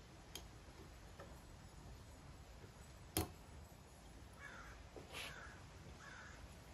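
Quiet hand work on a centrifugal clutch with snap ring pliers: one sharp metallic click about three seconds in, then a few faint high squeaks.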